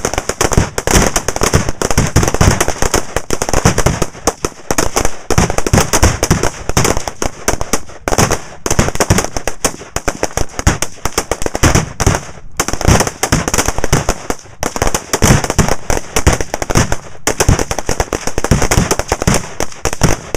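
Near-continuous rifle fire from a firing line, including a .308 M1A SOCOM II semi-automatic rifle close by, mixed with reactive explosive targets detonating downrange. Shots and booms overlap into a dense crackle, broken only by a few short lulls.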